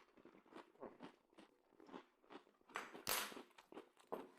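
Faint mouth sounds of a person eating: soft, irregular chewing and small clicks, with one louder noisy burst about three seconds in.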